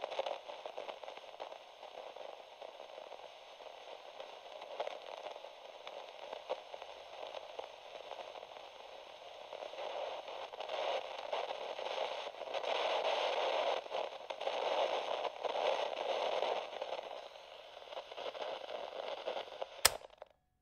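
Crackling, hissing static in a narrow, tinny band, like an old radio or worn record, swelling louder about halfway through. A sharp click near the end, then it cuts off.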